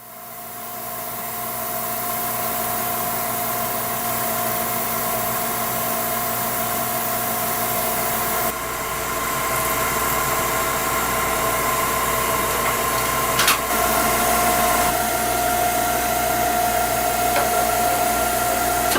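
CNC lathe running, a steady machine whine over hiss that shifts in pitch partway through, with one sharp click about two-thirds of the way in.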